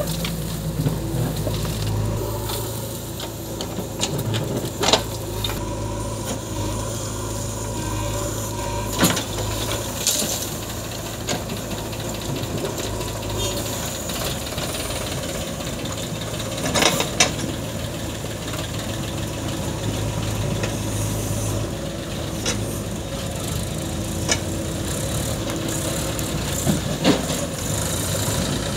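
Diesel engines of a JCB 3DX backhoe loader and a tractor running steadily, with a sharp knock now and then as soil and stones from the bucket land in the steel tractor trolley, the largest cluster of knocks a little past halfway.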